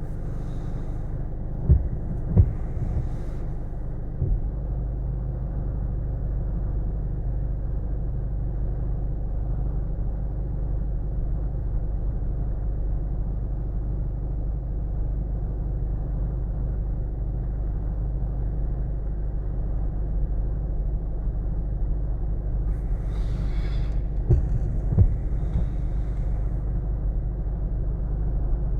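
Vehicle engine idling with a steady low rumble, with a few sharp knocks about two seconds in and again near the end.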